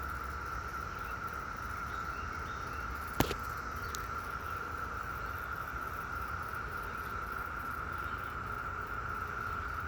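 A chorus of cicadas buzzing steadily at one even pitch, with a single sharp click about three seconds in.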